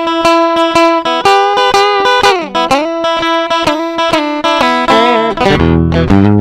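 Stratocaster-style electric guitar played on its middle pickup alone: a quickly picked lick of repeated notes, with a downward slide about two and a half seconds in, moving to lower notes near the end.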